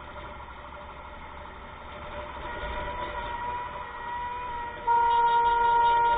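Vehicle horn in traffic: a fainter steady horn-like tone slowly growing louder, then about five seconds in a loud, steady horn blast held without a change in pitch.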